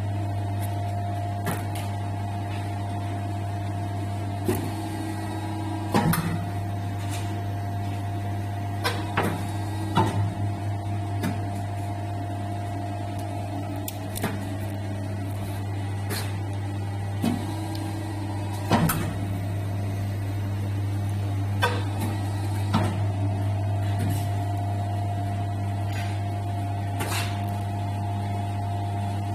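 High-frequency welding machine running with a steady electrical hum, broken now and then by sharp clicks and knocks.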